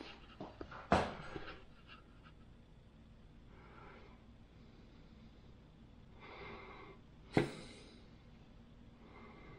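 Heavy Starrett precision level set down and handled on a steel magnetic chuck: a few light clicks and a clack of metal on steel about a second in, and another sharp knock about three-quarters of the way through. Two soft breaths come in between.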